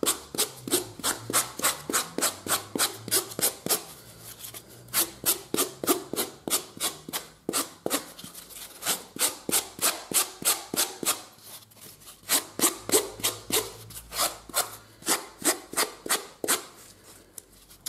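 Small hand rasp filing a saddle knee roll: quick scraping strokes, about four or five a second, in runs of a few seconds broken by short pauses. This is the finishing pass that smooths the knee roll's surface.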